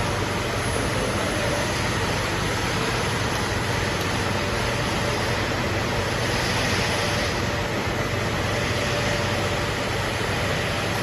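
Steady hum and hiss of running machinery, with a few faint steady tones and no change in level.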